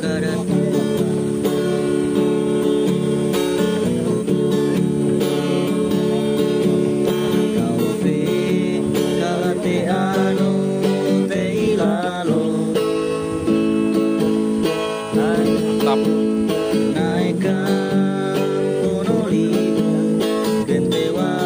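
Background music: acoustic guitar strumming, with a melody line over it.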